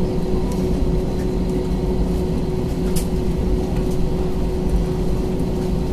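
Cabin noise of an Airbus A321-231 with its IAE V2500 engines at idle on the ground: a steady low rumble with a constant hum, and one faint tick about three seconds in.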